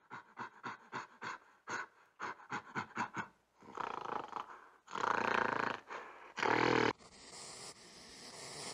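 Gorilla panting and grunting: a quick run of short breathy huffs, about three or four a second, then two longer, louder huffs. Near the end this gives way to a scratchy rustling from a hedgehog in grass.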